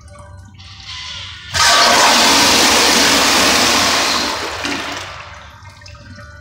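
Kohler Highline toilet on a flushometer valve flushing. A softer hiss of water comes first, then about a second and a half in a sudden loud rush of water that holds for a few seconds and dies away over the last two seconds.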